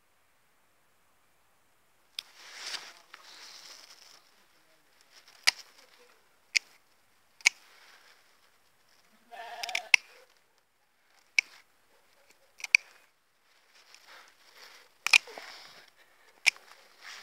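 Pruning shears snipping rose stems, about nine sharp clicks a second or so apart, with branches and leaves rustling between cuts. A short pitched cry sounds briefly about ten seconds in.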